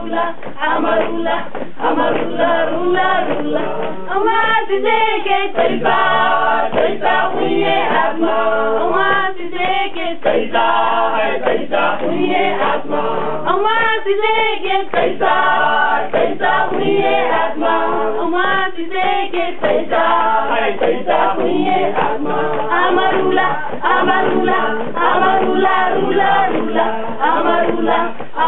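Background music: a song carried by group singing, choir-like voices throughout.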